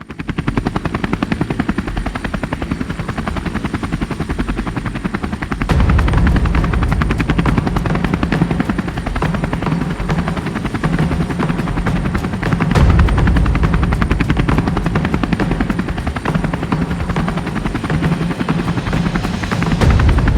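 Helicopter running, its rotor blades making a fast, steady chop. It grows louder about six seconds in and again around thirteen seconds.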